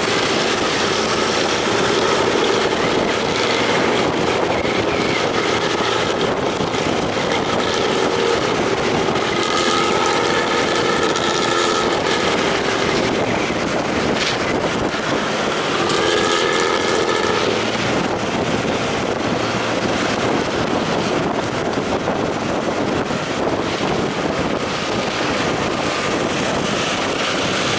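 Pantura intercity bus with a growling 'ngorok' exhaust, running loud and steady. A multi-tone horn sounds twice: for about two seconds around ten seconds in, and more briefly about sixteen seconds in.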